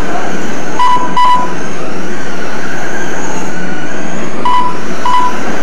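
Electric 1/10-scale Slash RC trucks running on a dirt oval, a loud steady din. Two short electronic beeps come about a second in and two more near the end, typical of a lap-counting system registering cars crossing the line.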